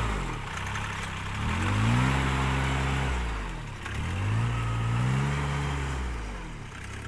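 Riding rice transplanter's engine running in a wet paddy, its pitch rising and falling twice as the machine is turned at the field edge.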